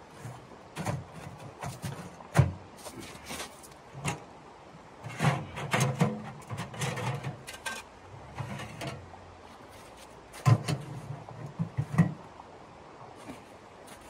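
Irregular metal clanks and knocks of a portable steel tent stove being set up and its chimney pipe fitted, with a few sharp knocks among softer handling sounds.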